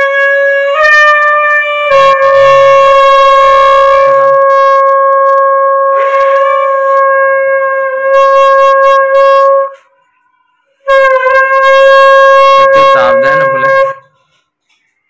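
Conch shell (shankha) blown in two long, steady blasts. The first lasts about ten seconds, stepping up slightly in pitch near its start. After a short silence, the second lasts about three seconds.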